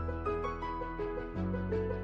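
Background music: a soft keyboard or piano melody of repeating short notes over sustained bass notes that change about every second and a half.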